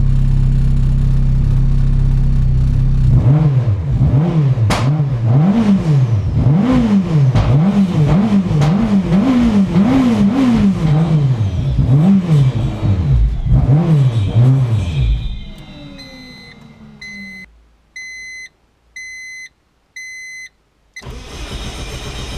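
Turbocharged Audi 1.8T four-cylinder engine fitted with an ultra-light flywheel, idling and then blipped about a dozen times in quick succession, the revs rising and falling sharply with each blip. The engine then winds down and stops, and a chime beeps four times about a second apart.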